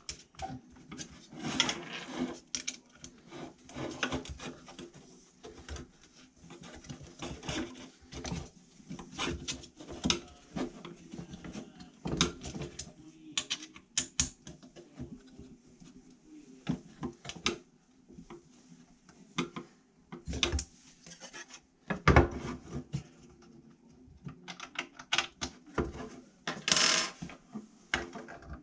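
Hands fitting bolts and nuts through black mounting plates and brackets: irregular small clicks, clinks of metal hardware, and parts knocking and rubbing against each other and the bench. There is a louder knock about two-thirds of the way in and a short scrape near the end.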